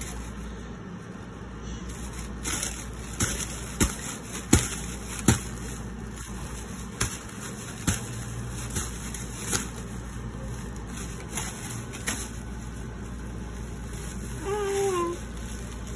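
Thin clear plastic bag crinkling and rustling in irregular sharp crackles as it is waved about, over a low steady hum. A baby gives a short squealing coo near the end.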